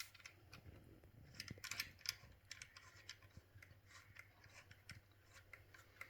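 Faint, irregular small clicks and scrapes of a bare speaker wire being worked into a terminal on the back of a speaker, a little busier about one and a half to two and a half seconds in.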